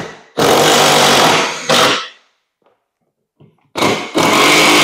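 Cordless drill driving self-tapping screws through the golf cart's plastic floorboard into the frame: two runs of the motor, each over a second long, the first followed by a short extra burst as the screw snugs down.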